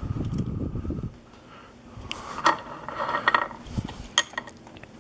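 Small metal lock parts being handled: a fast rattle lasting about a second, then a run of light clicks and taps.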